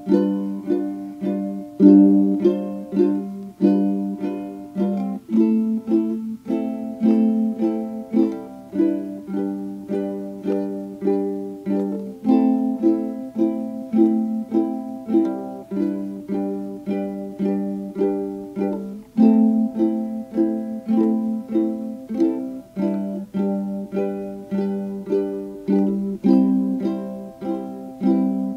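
Background music: a plucked-string tune of short, evenly paced notes, about two a second.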